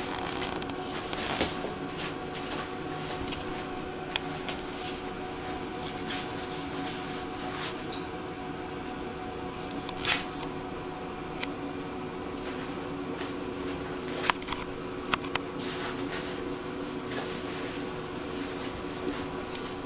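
Soft scuffling, licking and mouthing sounds of an adult dog and a puppy playing on a fleece mat, with scattered small clicks, the sharpest about ten seconds in, over a steady hum.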